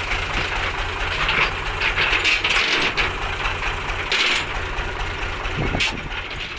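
Heavy diesel truck engine idling, a steady pulsing low rumble, with higher clattering noise over it and a couple of sharp knocks after about four seconds.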